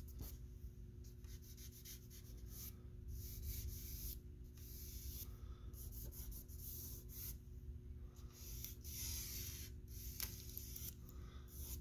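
Vine charcoal scratching across drawing paper in repeated, irregular strokes, some short and some held for about a second, with a dry hiss.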